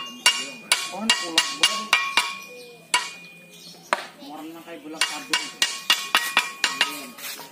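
Hammer striking the blade of a brass boat propeller laid over a wooden block, beating it to set the blade's shape and pitch. Quick strokes, about three a second, each leaving a short metallic ring, in two runs with a pause of about a second near the middle.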